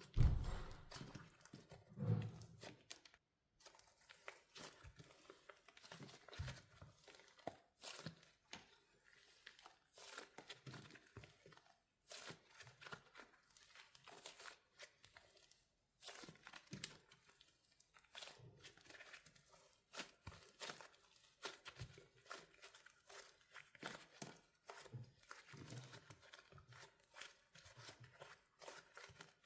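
Hardened wax layers on a soft soap squishy cracking and crinkling as it is squeezed, a steady stream of small crackles with brief pauses. There is a louder crunch at the start and another about two seconds in.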